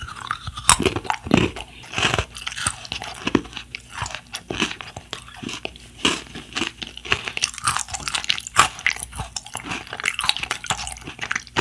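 Close-up crunchy chewing of Choco Songi, chocolate-capped biscuit mushroom snacks: a steady run of irregular crisp crunches as the biscuit is broken down with the mouth closed.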